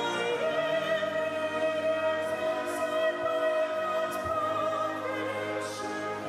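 Brass band of cornets, horns, trombones, euphoniums and tubas playing a slow hymn tune in long held chords, with a congregation singing along. The harmony moves on about five seconds in.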